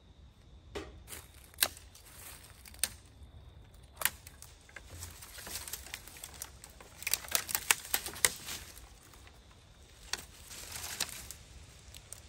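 Irregular sharp clicks and snaps with short bursts of rustling, and a quick run of clicks about seven to eight seconds in.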